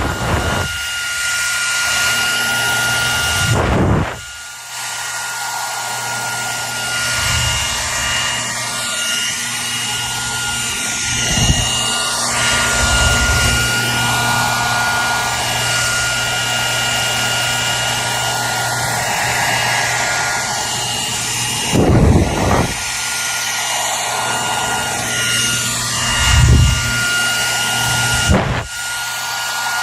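Hair dryer running steadily: an even rushing blow of air with a steady whine and a low motor hum. The level dips briefly about four seconds in, and a few short low thumps come later on.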